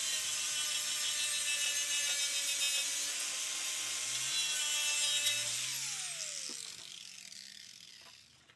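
Angle grinder with a sanding disc grinding paint off the steel front apron of a VW Beetle, a steady high whine over rasping noise. About five and a half seconds in it is switched off and its whine falls away as the disc spins down.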